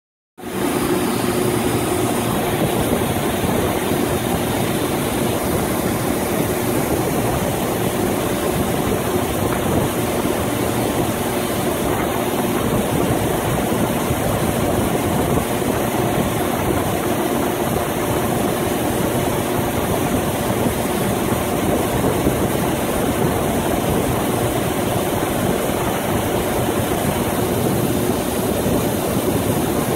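Steady, unbroken engine hum with a hiss of noise over it and no change in pitch or level.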